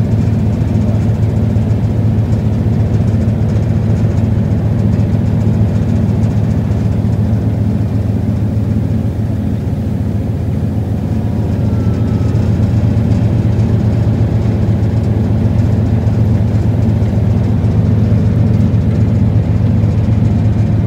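River cruise boat's engine running steadily, a constant low drone.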